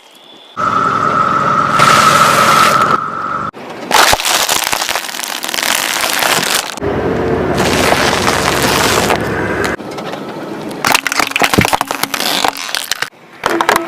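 Objects cracking and crunching as they are crushed by a car, in several separate bursts a few seconds each.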